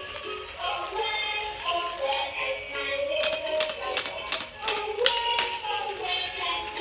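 Battery-powered dancing dog toy playing its built-in electronic tune: a melody with sharp clicks scattered through it.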